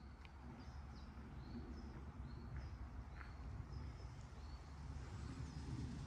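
Small birds chirping: a faint string of short, high chirps repeating about every half second, over a low steady rumble.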